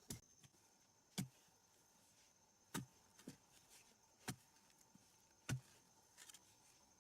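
A hand tool striking repeatedly in a steady work rhythm: six sharp blows, about one every second and a half, with a faint steady high tone beneath.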